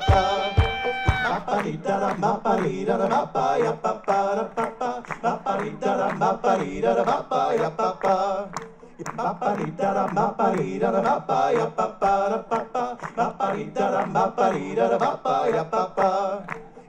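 Looped Balkan folk music from a one-man band's loop station: layered melodic phrases repeating over and over. A bass drum beat and a held clarinet note stop about a second in, and the loop plays on without them.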